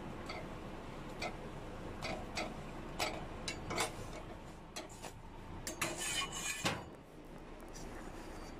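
Scattered light clicks and clinks of a steel spatula against a gas stove's burner grate as a roti is pressed and puffed over the flame, with a short rustling clatter about six seconds in.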